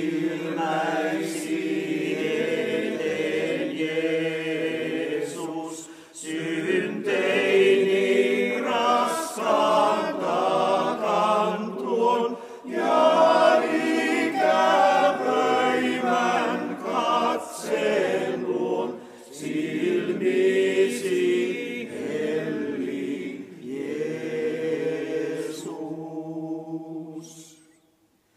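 Men's choir singing unaccompanied, in phrases separated by short pauses. The singing stops near the end.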